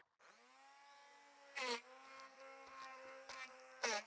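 Ovente immersion hand blender's motor spinning up with a short rising whine, then running at a steady pitch while its blades crush ice cubes in a plastic pint jar. Loud crunching rattles of ice come about one and a half seconds in and twice near the end.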